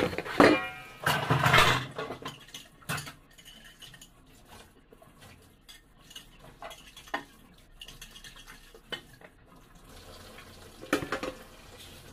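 Stainless steel dishes clanking and clattering as they are scrubbed and washed by hand: a loud run of clatter with metallic ringing in the first two seconds, then occasional single clinks.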